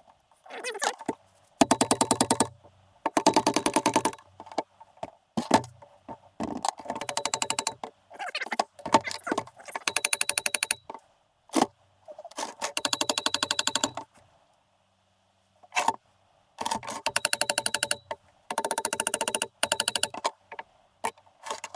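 A tool clicking rapidly in repeated bursts of about a second with short pauses between, as fasteners are worked loose during the engine teardown. The sound fits a power impact driver or a ratchet wrench.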